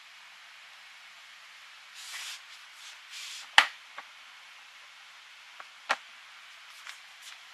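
Two loud sharp clicks about two seconds apart and a few fainter ones, with soft rustling just before the first, over a steady hiss.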